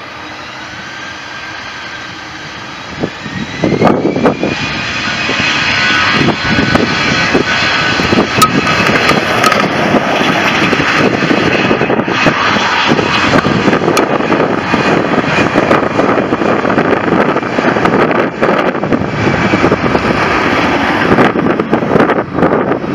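Airbus A320-214's twin CFM56-5B turbofans spooling up to takeoff thrust. A whine rises in pitch over the first few seconds, then the engine noise jumps to loud about four seconds in and stays loud as the jet accelerates down the runway.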